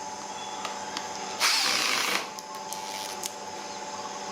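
A power tool's motor running steadily, with a loud harsh burst of noise lasting under a second about a second and a half in.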